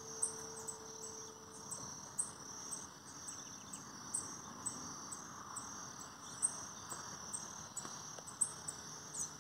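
Steady high-pitched insect trilling, likely crickets, with short sharp high chirps recurring about once a second.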